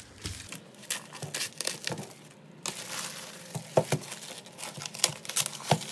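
Plastic mailer bag crinkling and tearing as it is cut open with scissors and pulled apart: irregular rustles and crackles.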